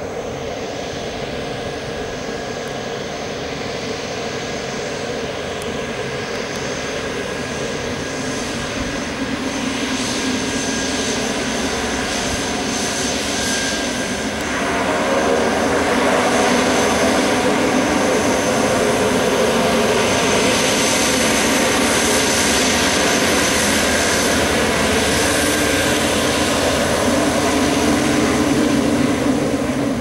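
The twin Pratt & Whitney PT6A-42 turboprop engines of a Beechcraft B200T Super King Air running as it taxis: a steady propeller hum under a high turbine whine. It grows gradually louder and steps up sharply about halfway through, then holds loud.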